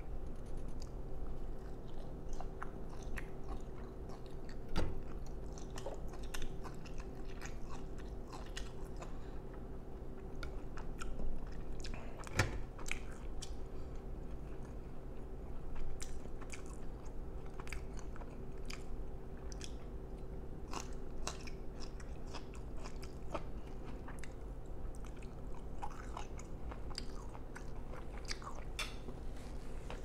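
Close-miked chewing of steak and asparagus, with many short wet mouth clicks and smacks throughout and a few sharper clicks, over a faint steady hum.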